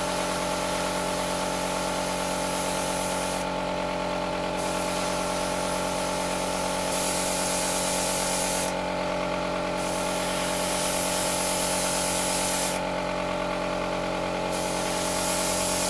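Airbrush spraying paint in passes, a steady hiss that eases off three times between passes, over the constant hum of the air compressor's motor.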